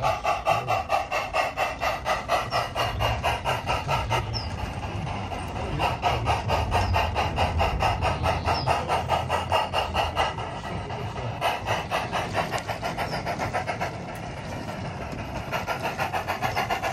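Sound unit of a battery-powered, radio-controlled 32mm gauge model of the Ffestiniog 0-4-0 'Prince' playing fast, even steam-exhaust chuffs through its loudspeaker as the locomotive runs. The beat softens briefly twice.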